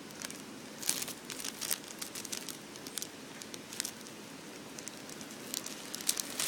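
Thin plastic packaging crinkling and crackling as it is handled, in scattered crackles that grow busier near the end.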